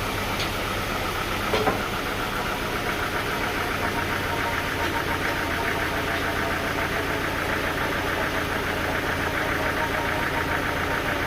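An engine running steadily with a fast, even pulsing, and two sharp knocks about one and a half seconds in.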